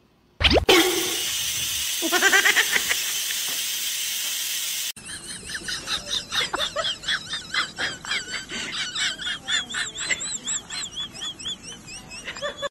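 A rice cooker's steam vent hissing loudly and steadily, starting about half a second in and cutting off abruptly about five seconds in. After that comes a run of short, high warbling chirps.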